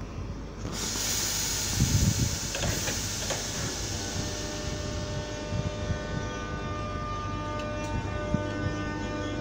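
Class 319 electric multiple unit at the platform: a burst of air hissing starts about a second in and fades over a few seconds, with a few low thumps around two seconds in. Then the train gives a steady electrical whine of several tones that holds its pitch.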